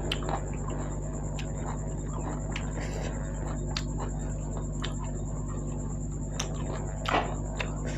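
Close-up wet eating sounds: a person chewing and smacking on soft dhido and goat meat gravy, with scattered sharp mouth clicks and a louder squelch about seven seconds in, over a steady background hum.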